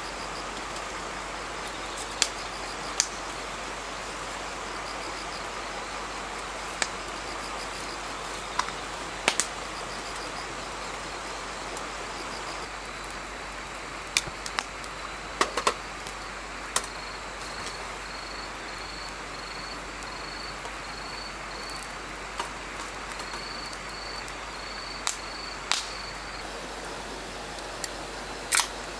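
Insects chirping in a faint, high, evenly pulsed rhythm over a steady rushing background, with sharp pops scattered through from the crackling wood and charcoal fire.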